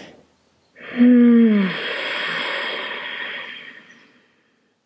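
A woman's audible breathing: the soft end of a deep in-breath, then about a second in a loud voiced sigh falling in pitch that trails into a long breathy out-breath, fading out over about three seconds.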